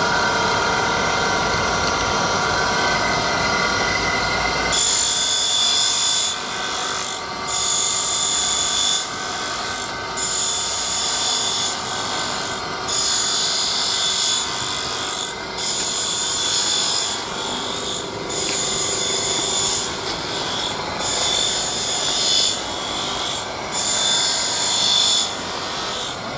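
Ten-clamp hot-melt glue (perfect) book binding machine running with a steady mechanical hum. About five seconds in, a hissy rasping noise joins it and repeats in stretches, breaking off briefly about every second and a half as the clamps cycle through.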